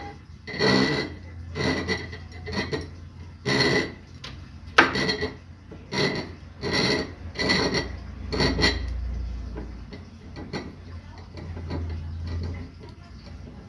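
A glass bottle being worked on a bottle-cutting machine: a series of short scratching strokes with a squeaky ring, about one a second, that grow fainter after about eight seconds. This is typical of a scoring wheel cutting a line into the glass.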